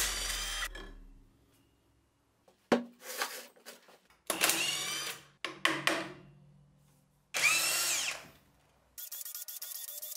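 Cordless drill-driver run in several short bursts, its motor whine rising and falling, backing the screws out of a homemade rotary-valve engine's cover plate. A few sharp knocks fall between the bursts, and a steady buzz starts near the end.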